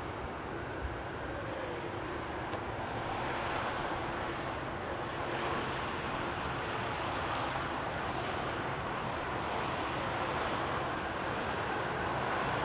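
Jet engine noise of a Boeing 747-8F freighter's four GEnx-2B engines, a steady, dense rumble and rush that slowly grows louder.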